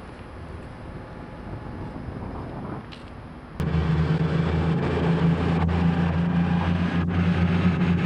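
Quiet station and passing-train noise, then, after a sudden cut about three and a half seconds in, a Class 222 Meridian diesel multiple unit's underfloor diesel engine running loud and steady, a constant deep hum with no revving.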